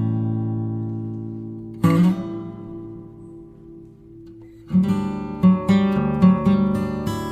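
Acoustic guitar music: a ringing chord struck near the start and another about two seconds in, each left to fade, then quicker picked notes from about two-thirds of the way in.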